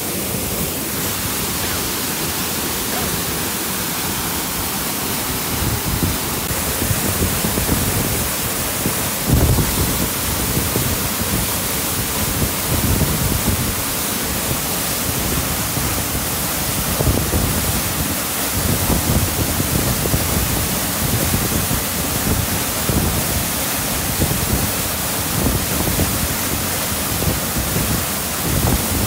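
Fast-flowing mountain stream rushing steadily over rocks, with irregular low thumps on the microphone, the strongest about nine seconds in.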